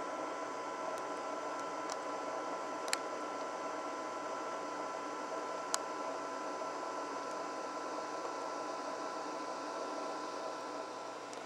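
Steady hiss with a faint, even high whine running under it, broken twice by a sharp click, a little under three seconds apart.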